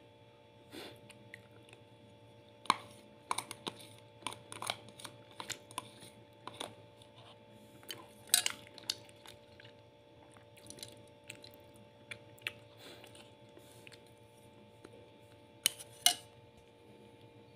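Close-up eating sounds: mouth-chewing of rice, with irregular clicks and scrapes of a plastic spoon against a ceramic plate. Sharper clicks stand out about three seconds in, around eight seconds, and twice near the end, over a faint steady hum.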